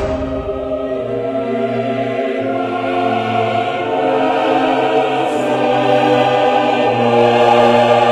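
Choral music: voices holding long sustained chords that grow louder in the second half.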